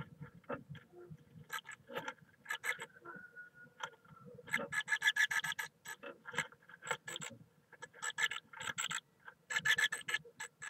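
Great tit scratching and shuffling in the moss of its nest box as it turns in the nest cup: rapid runs of scratchy rasping from its feet and body against moss and wood, loudest about halfway through and again near the end.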